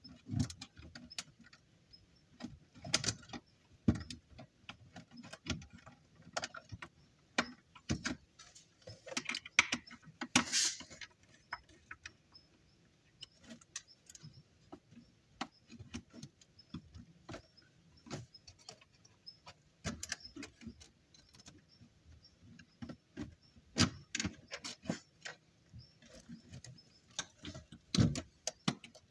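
Hands handling wires and small parts inside a plastic enclosure: irregular clicks, taps and small knocks, with a longer scrape about ten seconds in.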